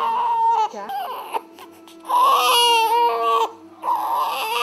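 Young infant crying hoarsely in a series of wails, the longest in the middle. The hoarse cry is a sign of infantile beriberi (thiamine deficiency): an enlarged heart pressing on the recurrent laryngeal nerve.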